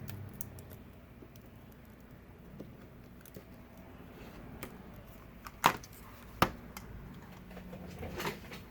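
Light clicks and taps of hands handling an iPad and small tools on a workbench, with two sharper clicks just past the middle and a brief scrape near the end.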